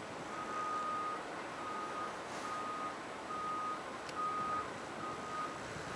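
A vehicle's reversing alarm beeping steadily, a single-pitch beep about once a second, over steady background noise.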